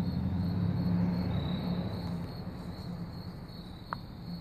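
Insect chirping as a thin, high, rapidly pulsing tone, over a steady low mechanical hum that is loudest at first and fades after about two seconds.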